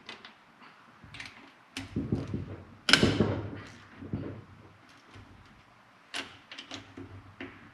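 Metal hand tools clinking and clanking on an engine as the cylinder head bolts are broken loose: a string of separate knocks, with a sharp metallic clank about three seconds in that rings briefly.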